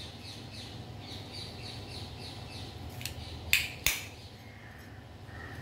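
Two sharp metallic clacks, about half a second apart a little past three and a half seconds in, from a steel hand-press lemon squeezer being worked over a steel bowl while a lime is pressed. Birds chirp faintly in the background.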